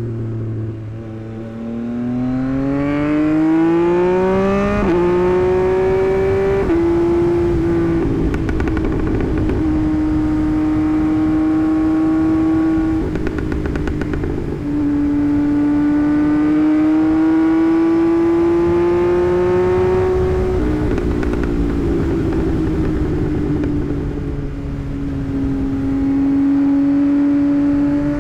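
Tuned 2024 Yamaha MT-09's inline-three engine under way: it revs up and shifts twice in quick succession about five and seven seconds in, then holds a steady pace. It pulls up again in a long rising rev and shifts down to a lower steady note about twenty seconds in.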